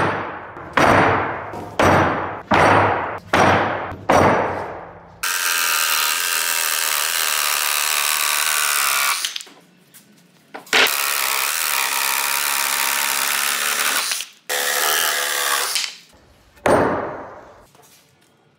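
Six sharp knocks in quick succession, each ringing away, then steady power-tool noise in three stretches that each cut off abruptly, and one more knock near the end.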